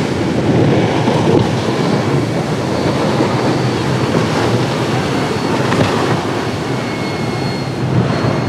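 Steady rumble of boat engines running through the surf of a rough inlet, with breaking waves and wind on the microphone.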